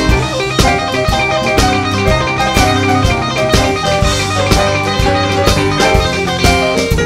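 Blues-rock band playing an instrumental passage: electric guitar lines over a steady drum beat.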